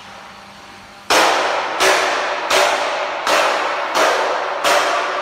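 Stainless steel storage tank wall knocked by hand six times at an even pace, each knock ringing out with a metallic hollow tone.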